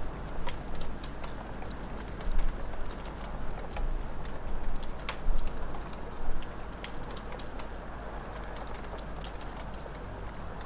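Wood fire crackling in a fireplace: irregular sharp pops and snaps over a steady low hiss and rumble, the louder pops thinning out in the last few seconds.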